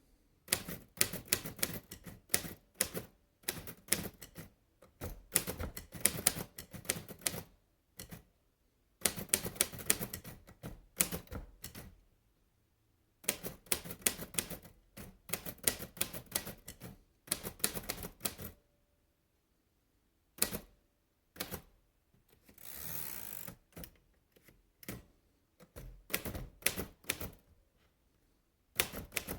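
Royal De Luxe Model "A" portable typewriter being typed on: runs of rapid key strikes in bursts with short pauses between them. About three-quarters of the way through there is a smoother rushing sound lasting about a second.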